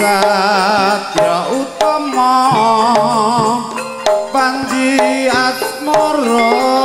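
Live campursari music: a Javanese gamelan ensemble with hand drums and pitched metal percussion, under a melody line with a wide, wavering vibrato.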